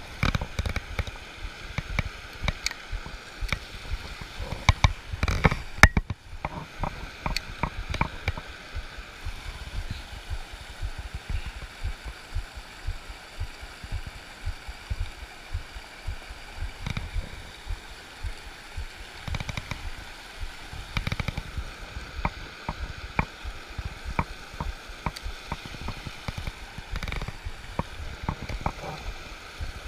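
Steady rush of river water running over a rocky riffle, overlaid with frequent irregular knocks and low thumps, the loudest about five to six seconds in.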